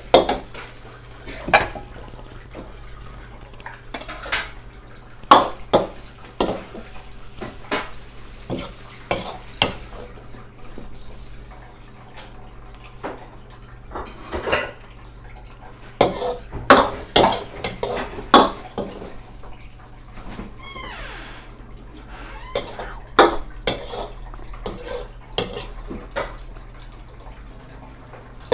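A metal ladle scraping and clanking against a wok as stir-fried noodles are scooped out and served, in irregular sharp clinks and scrapes. A faint sizzle from the hot wok can be heard in the first several seconds.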